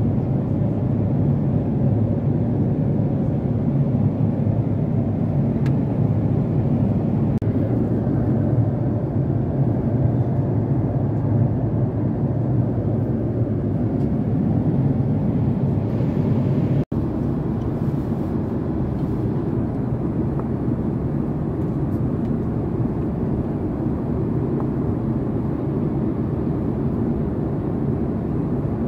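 Steady low roar inside the economy cabin of a Boeing 767-400ER airliner at cruise: engine and airflow noise. It drops out for an instant about two-thirds of the way through.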